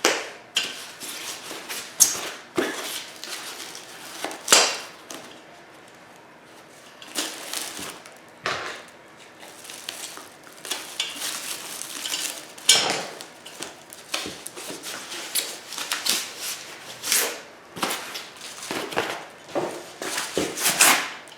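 Packaging being stripped off a chair part: crinkling and rustling in irregular bursts, with a few louder, sharper crackles and clatters.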